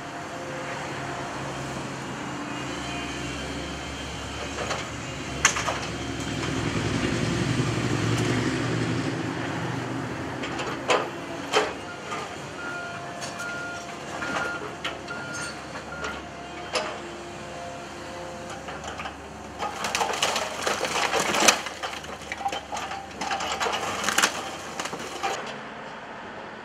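Excavator with a demolition grab working through brick rubble: its engine runs and works harder about a quarter of the way in, with repeated clatter and crashes of bricks and masonry, thickest and loudest about two-thirds through. A short run of evenly spaced beeps sounds about halfway.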